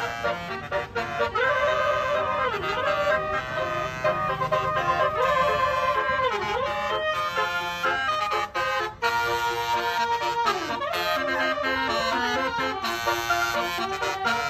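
Bus telolet Basuri multi-trumpet horn playing a tune: several held notes at once, with repeated swoops down and back up in pitch and a short break about halfway.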